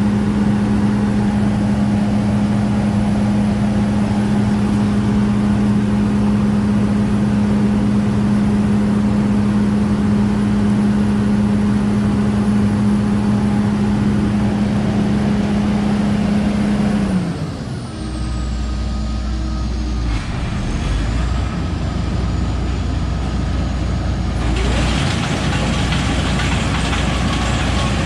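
A John Deere combine running with a strong steady hum. About two-thirds of the way through, the pitch drops away and it settles into a low idle rumble.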